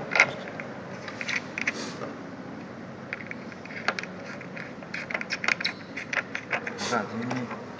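Small clicks and scrapes of a wire's crimped lug being fitted onto a brass binding-post terminal and the terminal cap being turned. The sharpest click comes just after the start, and the clicks come thick and fast in the second half.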